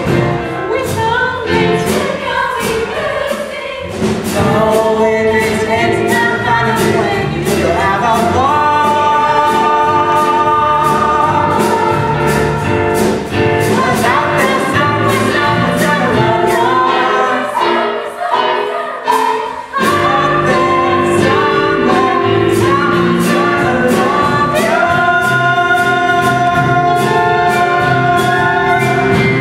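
A chorus singing a musical-theatre number over band accompaniment with a steady beat, building to long held notes near the end.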